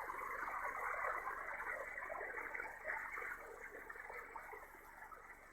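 HF transceiver receiving on 15 m single sideband: band static through the receiver's narrow audio filter, with faint garbled sideband signals from other stations, fading slightly toward the end.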